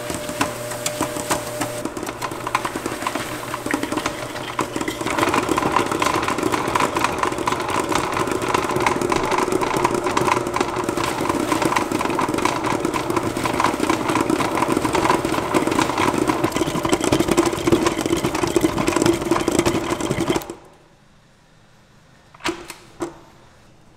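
Stand mixer motor running steadily as the beater churns gelato base in a steel bowl, getting louder about five seconds in. It stops abruptly near the end, followed by two light knocks.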